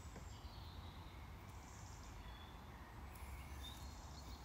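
Near silence: quiet room tone with a steady low hum and a few faint, short high chirps.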